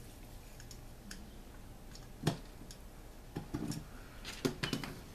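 Light clicks and taps of metal chainsaw engine parts being handled on a workbench as the ringed piston is worked into the cylinder, with one sharper knock about two seconds in and a cluster of quicker clicks in the second half.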